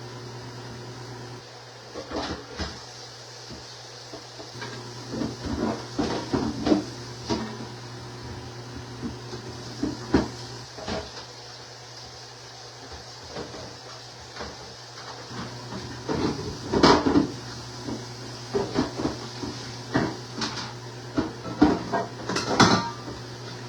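Irregular knocks and clatter of containers and fridge shelves or drawers being handled and set down, in clusters, with the loudest burst about 17 seconds in. A steady low hum runs underneath.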